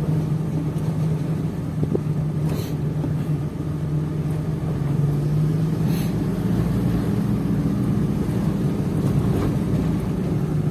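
Car engine running steadily while driving, heard from inside the cabin as a low, even hum, with two brief knocks from the car going over bumps.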